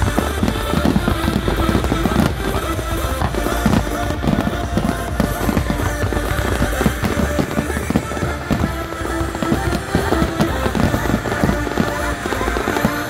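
Fireworks display: many aerial shells bursting and crackling in rapid succession, over music playing.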